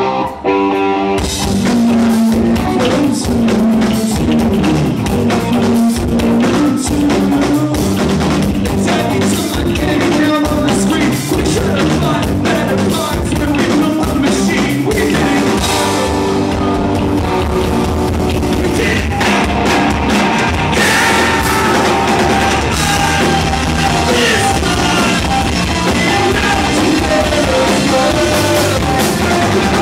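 Live rock band playing on stage. A lone electric guitar is joined about a second in by drums, bass and guitar all at once, and a man sings over the band through the microphone.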